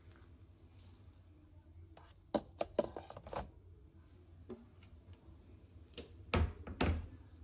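Kitchen handling sounds while rice is measured out from a countertop rice dispenser: a quick run of clicks and rattles about two seconds in, then two heavier knocks near the end, as of a plastic bowl set down on a stone counter.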